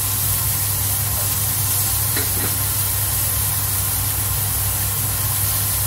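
Diced vegetables and corn kernels sizzling steadily in a hot nonstick wok on a gas burner, stirred with a silicone spatula, with a steady low hum underneath.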